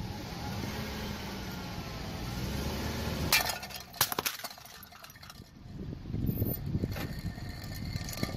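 Car tyre rolling over a row of pink drinking tumblers and crushing them. A low rumble as the car creeps forward, then two sharp crunching breaks, a little after three seconds in and again at four, followed by more low rumble with scattered small cracks.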